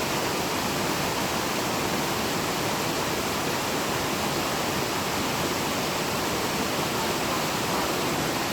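Waterfall: falling water giving a steady, unbroken rush.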